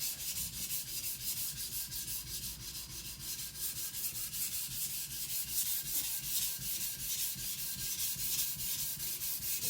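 Chinese cleaver's edge being stroked back and forth across a wet Naniwa Professional whetstone: a steady, even grinding hiss at about four strokes a second.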